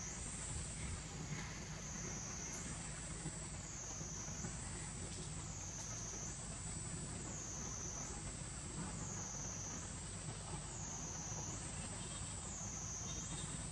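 High-pitched insect chorus outdoors, a steady shrill drone that wavers down and up in pitch about once every second and a half, over a low steady rumble.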